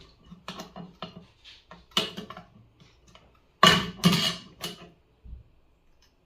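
A run of small clicks, knocks and clatters of things handled on a hard work surface, loudest in a cluster between about three and a half and four and a half seconds in.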